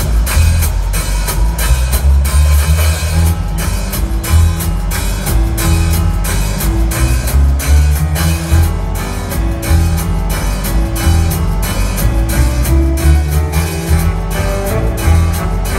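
Live rockabilly band playing: a drum kit pounding out a driving beat over a heavy, pulsing bass line, with a hollow-body electric guitar.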